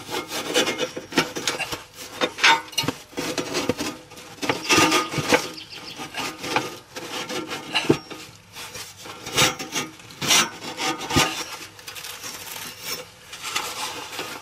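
Irregular scraping and rubbing of an anchor tie-down strap and a gloved hand being worked around a rusty steel I-beam, in many short, uneven strokes.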